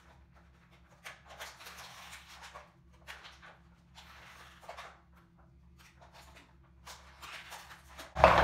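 Clear plastic toy packaging rustling and crinkling with small clicks, in several short bursts of handling as a Fingerling toy is worked free of it.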